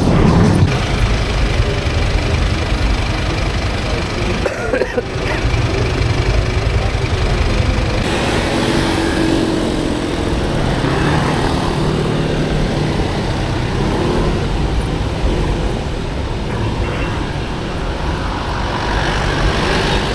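Road traffic noise from cars and motorcycles close by, heard from a moving bicycle, with a steady heavy rush low down and an engine hum swelling for a few seconds near the middle.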